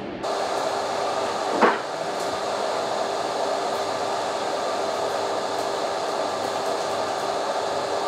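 Steady fan noise with a constant hum from a fan and an arc welder pushing about 100 amps through overloaded cable connectors, with one sharp crack about a second and a half in.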